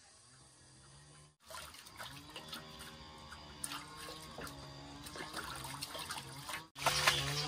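Water splashing and trickling, as in washing at a basin, with background music under it.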